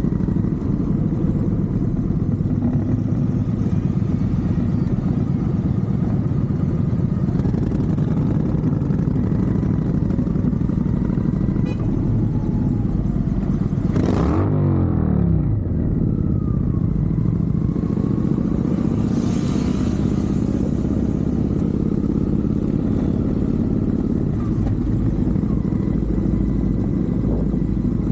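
Motorcycle engines with Vance & Hines aftermarket exhausts running steadily while riding, a dense low rumble. There is a brief downward sweep in pitch about halfway through.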